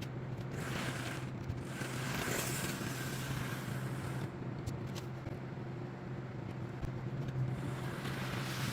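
HO scale model diesel locomotive running on the layout track, its electric motor and wheels making a steady low hum with a faint rolling scrape, and a few light clicks in the second half.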